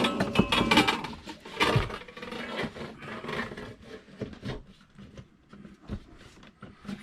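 Scraping and rustling of parts and lines being handled and worked into place, loudest in the first two seconds, then a scatter of light knocks and clicks.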